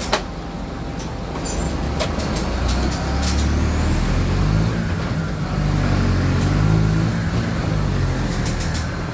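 Mercedes-Benz OF-1722M city bus's diesel engine running under way, getting louder about halfway through. There is a sharp knock right at the start and a few light rattles a second or two in.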